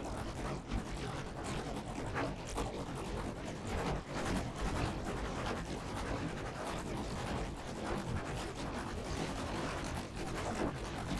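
Toy gears turning, a steady clattering rattle of many quick clicks.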